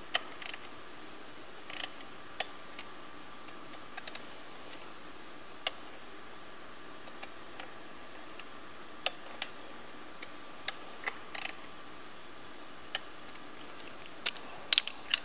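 Scattered sharp clicks and clinks of a torque wrench and socket on metal bolts, as the oil cooler housing's E8 Torx fasteners are run down and torqued to 106 inch-pounds.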